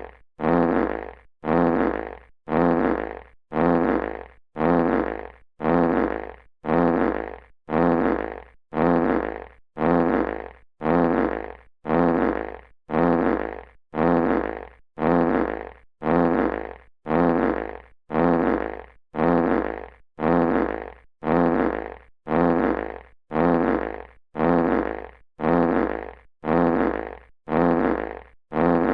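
Classic fart sound effect: one short fart that starts sharply and fades, repeated identically about once a second as a loop.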